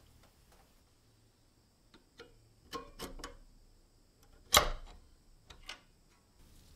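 Small metal clicks and scrapes as a screwdriver works at the rusty coil spring of an antique steel nutcracker, then one sharp, loud clack with a brief ring a little past halfway as the spring comes free onto the wooden bench, followed by a couple of lighter taps.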